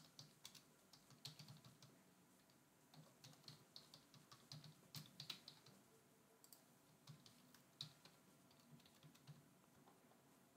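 Faint typing on a computer keyboard: runs of quick keystrokes with short pauses, sparser near the end, as an email address and then a password are keyed in.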